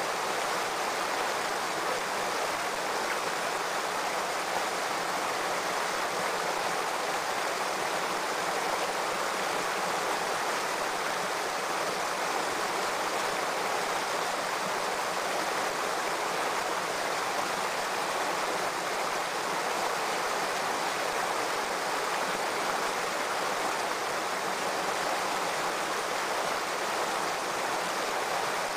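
Shallow rocky stream running: a steady rushing of water over stones, unchanging throughout.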